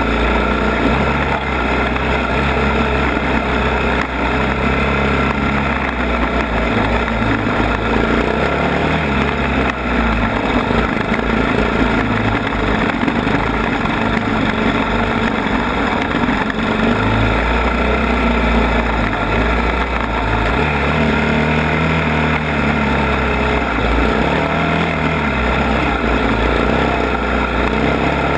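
ATV engine running while the machine is ridden, its low note shifting as the throttle changes.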